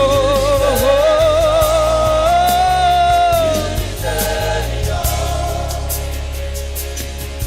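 Live gospel worship music: a held, wavering sung line (a wordless run or ad-lib) with choir, over band accompaniment with bass and a steady beat.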